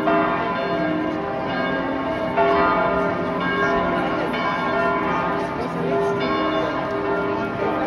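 The large bronze bells of Munich's Frauenkirche pealing together. Their strokes overlap into a continuous, loud ringing with a deep hum beneath.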